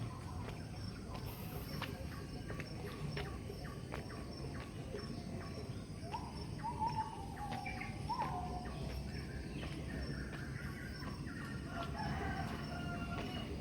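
Rooster crowing, one drawn-out crow about six seconds in, with more fowl calls near the end, over steady rural ambience dotted with short clicks.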